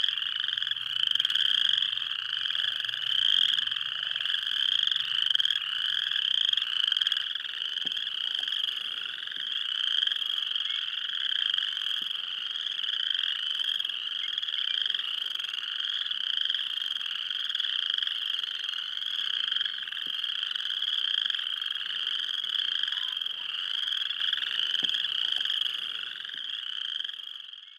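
A dense chorus of many frogs calling together, a steady mass of overlapping trills, fading out near the end.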